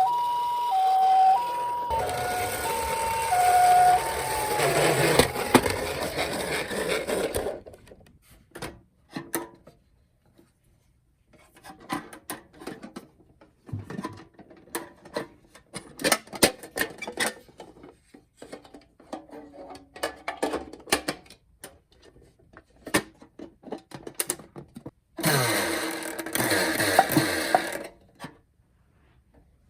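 Toy minicar ambulance's electronic two-tone hi-lo siren, which changes tone after about two seconds and winds down with a falling glide. Then comes a long quiet stretch of scattered small clicks and taps, and near the end a few seconds of louder, noisy sound.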